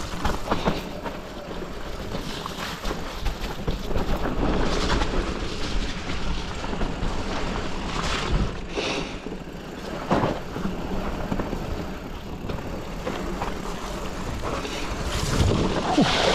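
Mountain bike descending a dirt trail at speed: tyres running over the dirt, with short knocks and rattles from the bike over bumps and wind rushing on the microphone. Near the end the bike splashes through a large muddy puddle.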